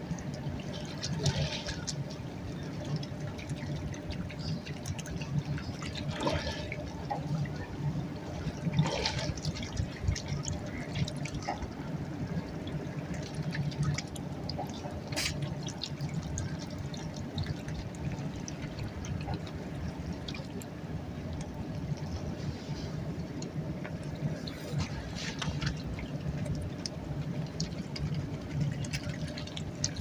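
Shallow river water lapping and trickling, with scattered small splashes and drips as Canada geese preen and dabble in it.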